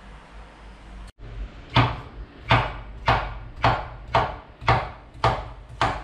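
Kitchen knife slicing a vegetable on a wooden cutting board: sharp, even chops about two a second, starting about a second in.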